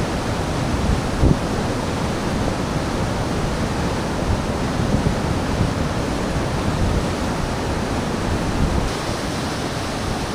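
Steady rush of river water pouring through a dam's spillway and churning into whitewater below. The sound changes slightly about nine seconds in.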